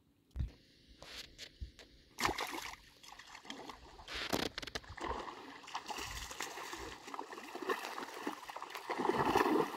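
Water splashing and sloshing as a hooked rohu thrashes at the surface on a fishing line, loudest near the end, after a few sharp knocks in the first couple of seconds.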